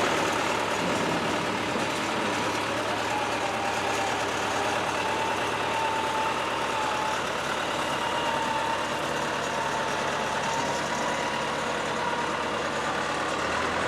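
Backhoe engine running steadily, with a faint wavering whine over a constant low drone.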